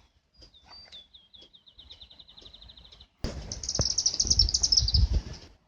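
Songbird singing outdoors at dusk: a few sliding notes, then a fast trill of evenly repeated notes at one pitch. About three seconds in a louder low rumble starts abruptly and runs under a quicker, higher trill, stopping just before the end.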